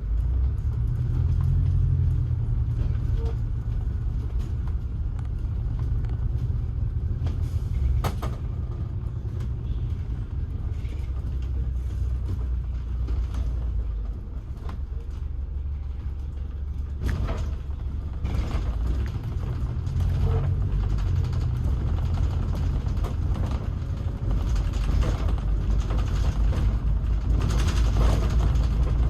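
A vehicle's steady low rumble with creaking and rattling, and a few sharp knocks, about 8 and 17 seconds in.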